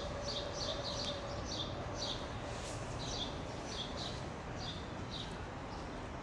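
Small songbird chirping over and over, short falling notes about two a second, sometimes in quick pairs, over steady outdoor background noise.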